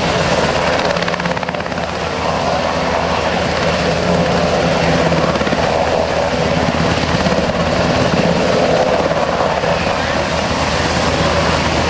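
HH-60G Pave Hawk helicopter hovering low over water: steady, loud rotor chop and engine noise.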